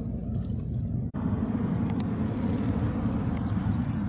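Lockheed C-130H Hercules's four Allison T56 turboprop engines droning steadily as it flies overhead. About a second in, the sound drops out for a moment and comes back fuller, with more hiss above the low rumble.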